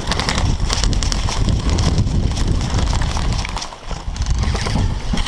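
Running footsteps on dry dirt, with wind rumbling on the helmet camera's microphone.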